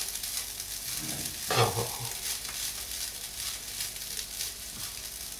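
A metal spoon stirring and scraping fried rice in a frying pan, with a faint sizzle from the pan on a still-hot hob. A brief vocal hum about a second and a half in.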